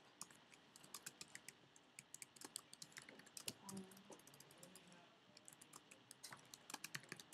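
Quick, light clicks and taps at a table, several a second and uneven, faint overall, with a brief low murmur a little after the middle.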